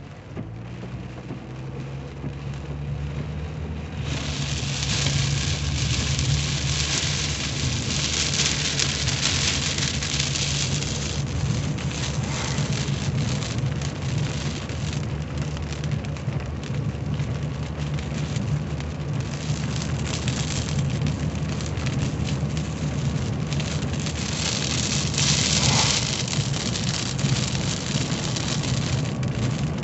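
Heavy rain pelting the windshield and roof of a 1985 Cadillac Cimarron, heard from inside the cabin over the steady hum of the car's engine and tyres on the wet road. The rain gets much louder about four seconds in and swells twice more.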